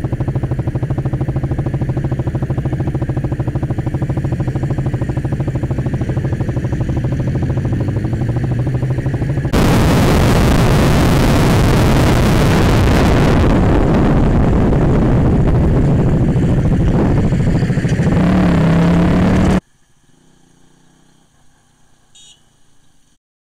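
KTM Duke 200's single-cylinder engine heard from a camera mounted on the bike: it runs steadily, then about ten seconds in it jumps abruptly to a louder rush of engine and wind noise while riding. A few seconds before the end the sound drops suddenly to a faint background.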